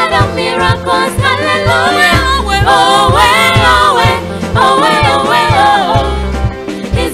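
A woman singing a gospel worship song into a handheld microphone over instrumental backing with a regular bass beat.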